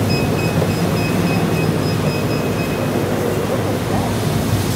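Treadmill running, its motor and belt giving a steady rumble. Its console beeps in a quick even string, about four short beeps a second, as the speed is stepped up, and the beeps stop about three seconds in.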